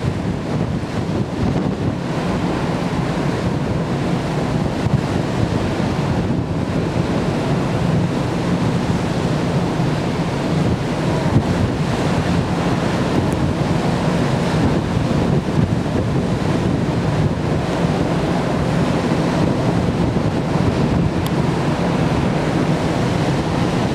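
Wind buffeting the microphone on the open deck of a moving ferry, over the steady rush of the sea and a low, even hum.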